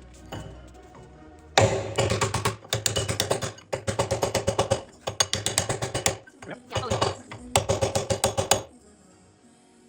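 Pneumatic impact tool hammering rapidly in six short bursts of about a second each, starting about a second and a half in, while working on the JCB boom pin and bushes.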